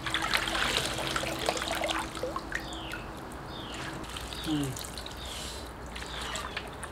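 Water splashing and trickling in a plastic basin as gloved hands rinse salted napa cabbage, loudest in the first two seconds, then quieter dripping and handling of the wet leaves.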